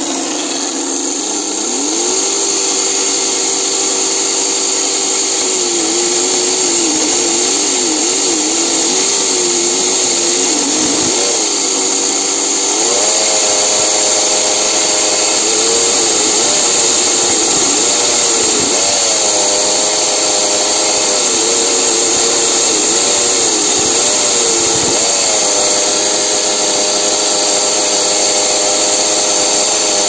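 Washing machine motor driving a homemade chainsaw bar and chain from a speed controller. It runs up to speed about two seconds in, then holds a steady whine whose pitch wavers and jumps up and back down several times.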